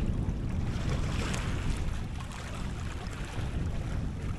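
Strong wind buffeting the microphone in an uneven low rumble, over the wash of small waves.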